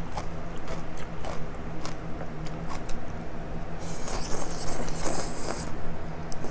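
Pho rice noodles slurped in one hissing pull of about two seconds, starting just before the middle. Small clicks of chopsticks and a spoon on the bowl and mouth sounds come before and after it.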